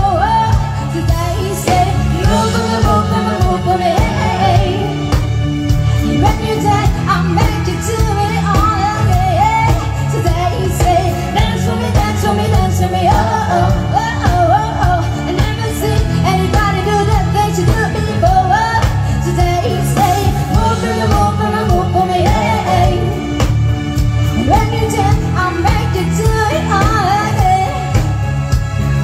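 Live band playing a pop song: a woman's lead vocal over drums, bass and electric guitars, with a steady beat.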